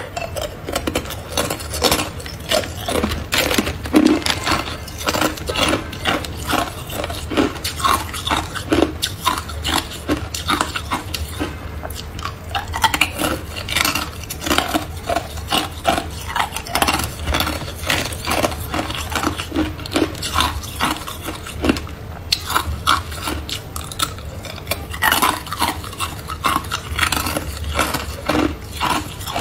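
Hard clear ice cubes bitten and crunched between the teeth close to the microphone, a rapid run of sharp cracks and crunches, with cubes clinking against each other as they are picked from a plastic bag of ice. A faint low hum runs underneath.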